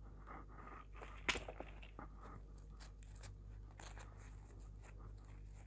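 Faint crinkling and rustling of a satin-ribbon bow and its glitter sheet being pressed and handled, with a sharper click about a second in.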